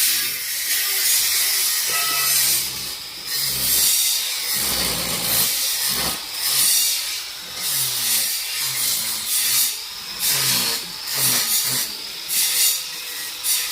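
Metalworking noise: harsh hissing and scraping in uneven bursts, a second or so apart with short breaks between.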